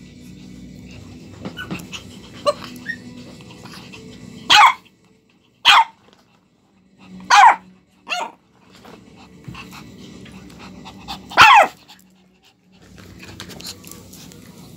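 Shih Tzu puppy barking: five short, high-pitched barks at irregular spacing, the first about four and a half seconds in and the last about eleven and a half, with faint scuffling and small clicks before them.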